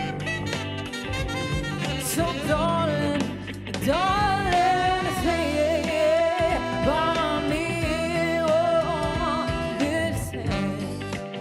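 Live band playing a slow soul song: a steady bass line under a wavering, gliding lead melody.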